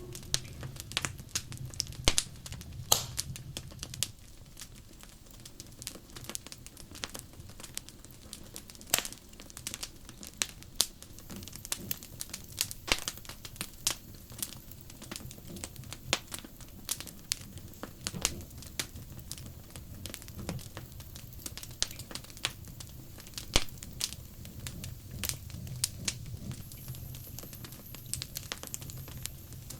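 Wood fire crackling, with irregular sharp pops and snaps over a low steady rumble of the flames.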